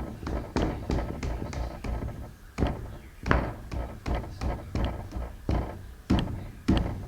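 Repeated irregular taps and thuds, two or three a second, from hand work fitting the windshield glass and rubber into the pickup's cab opening.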